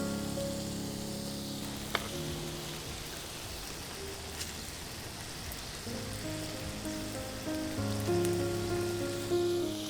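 Food sizzling as it fries in a pan, under soft melodic background music; a sharp click about two seconds in.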